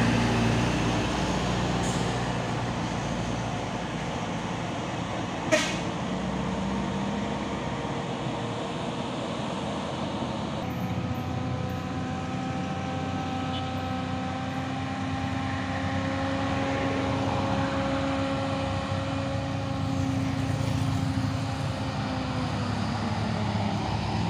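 Heavy trucks' engines running, a steady low drone. A single sharp knock comes about five seconds in, and steady whining tones join the drone from about eleven seconds in.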